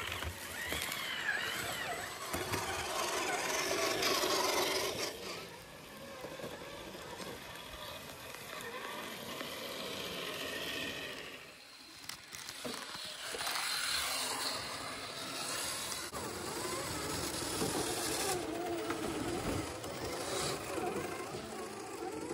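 Small electric motors and gearboxes of tiny RC crawler trucks whining as the trucks creep over roots and leaves, the pitch wandering up and down with the throttle.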